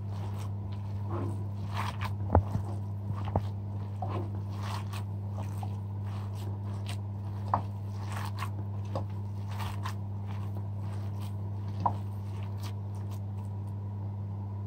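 Hands kneading raw minced meat with chopped onion, chilies and spices in a bowl: wet squishing and crunching, with a few sharp clicks against the bowl. A steady low hum runs underneath.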